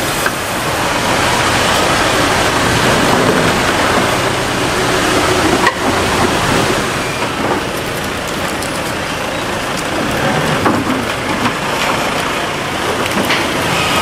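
Doosan forklift running as it lifts and carries a heavy hardwood log, with a single sharp knock about six seconds in.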